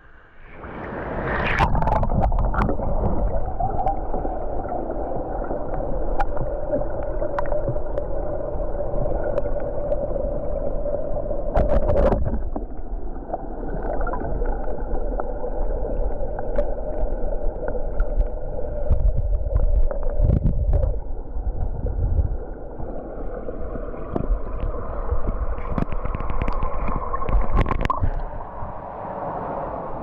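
Water sloshing and gurgling around a GoPro action camera as it dips in and out of the surface of a pool, the sound muffled while it is underwater. Short sharp clicks come here and there, starting about a second in.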